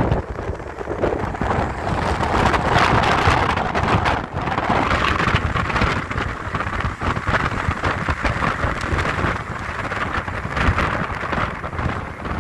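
Wind rushing over the microphone and road noise from a car driving at speed, a steady roar that rises briefly about two to four seconds in.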